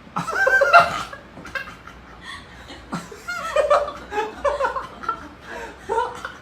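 A person laughing in several short bursts.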